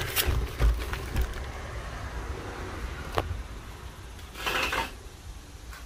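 Handling noise of a heavy boxed firework cake being moved: a low thump about half a second in, a few sharp knocks, and a brief scrape about four and a half seconds in.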